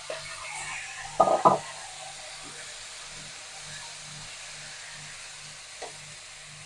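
Boiled black chickpeas sizzling faintly in hot oil in an aluminium kadhai as they are stirred with a perforated metal skimmer. A loud double knock, the spoon against the pan, comes about a second in.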